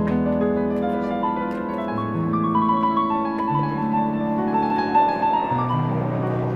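Background music led by piano: a slow melody over sustained bass notes that change every second or two.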